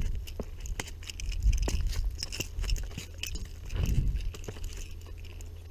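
Loose gravel crunching and rattling under footsteps, with a freshly landed striped bass flopping on the stones. The crunching dies down near the end.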